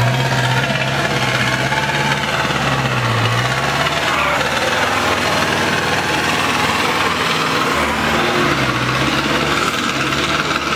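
Zetor tractor's diesel engine working hard as the tractor drives through deep mud, its note rising and falling with the throttle.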